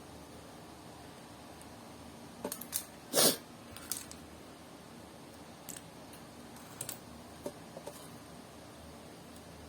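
Small plastic clicks and taps of Lego pieces being handled and fitted together: a scattering of sharp clicks, the loudest a short burst about three seconds in.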